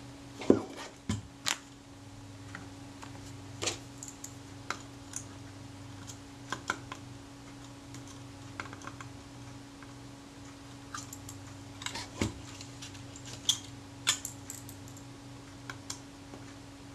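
Small metal parts of a Rolleiflex Automat camera clicking and tapping as fingers handle the focus-knob end of its focusing shaft: irregular light clicks scattered throughout, the loudest about half a second in. A steady low hum runs underneath.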